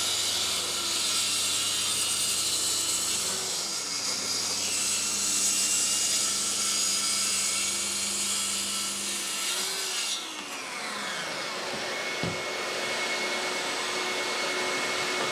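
Bosch plunge track saw cutting through a sheet along its guide rail, with a dust extractor running on its hose. About ten seconds in the saw is let off and its blade spins down, leaving the extractor's steady hum.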